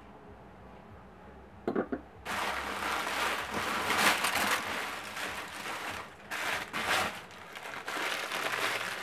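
Crumpled packing paper rustling and crinkling as a hand digs through it inside a cardboard box. Just before, a couple of short knocks come about two seconds in.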